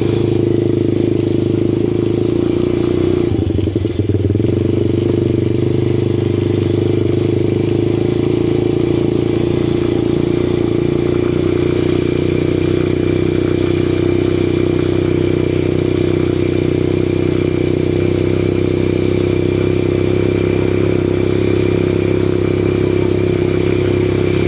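ATV engine running steadily under way, with a brief dip in level about four seconds in.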